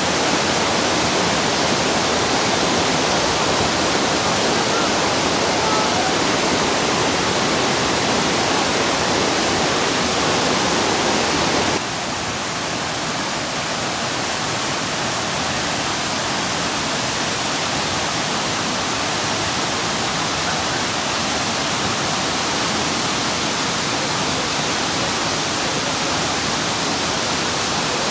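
Manthokha waterfall: water crashing down in a loud, steady rush. About twelve seconds in, the level drops suddenly to a slightly quieter rush.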